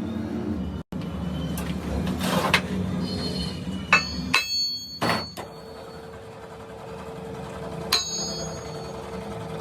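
Metal clinks and taps on steel work, each ringing briefly, over a running shop machine's steady hum; the loudest strikes fall a little under halfway through, with another near the end, and a steady tone sets in after the middle.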